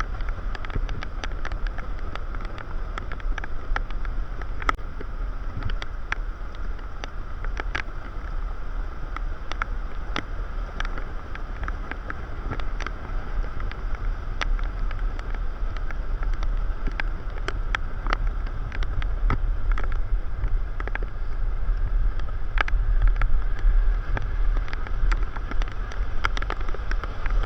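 Steady low rumble with wind buffeting the microphone, a steady mid-pitched hum over it, and many scattered sharp clicks.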